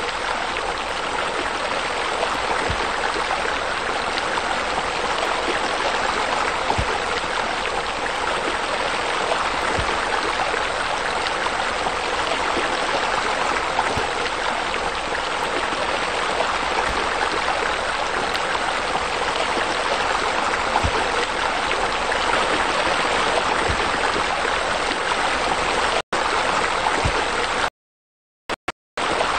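Steady rushing water, like a stream or a spillover falling into a pool. The sound cuts out briefly a few times near the end.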